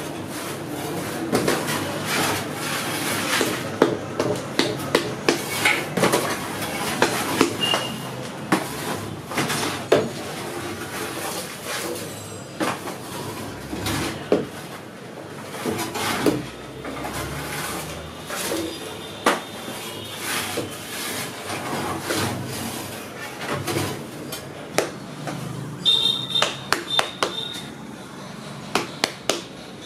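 Food-stall kitchen clatter: irregular clinks and knocks of metal utensils and trays over a steady background noise.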